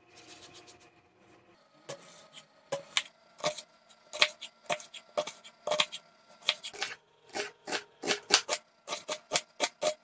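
Chef's knife dicing an onion on a wooden cutting board: soft slicing at first, then sharp taps of the blade on the board from about two seconds in, one or two a second and quickening toward the end.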